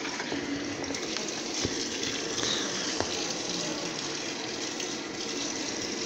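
Consul Maré CWL10 top-loading washing machine filling: water streams from the inlet into the tub onto the clothes with a steady rushing splash, and two faint clicks.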